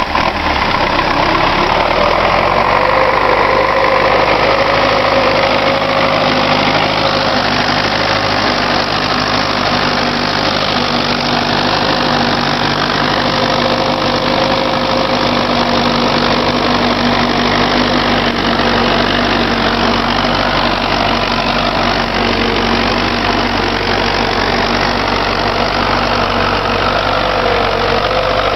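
Belarus MTZ-82 tractor's four-cylinder diesel engine running steadily as the tractor drives through deep snow.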